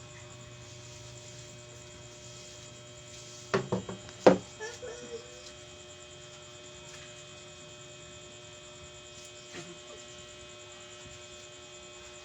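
Steady electrical mains hum. About three and a half seconds in comes a quick cluster of sharp knocks or cracks, the loudest just after four seconds, followed by a brief pitched sound. One faint click comes later.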